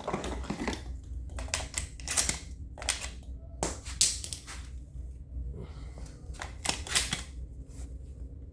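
Shells being pushed into a semi-automatic shotgun's magazine tube: a run of irregular metallic clicks and snaps as each shell is thumbed past the shell latch.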